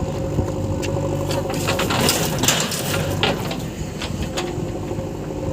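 JCB 3DX backhoe loader's diesel engine running, with scattered knocks and clicks and a rattling rush of noise for about a second, around two seconds in, as murum soil and gravel are loaded into the tractor trolley.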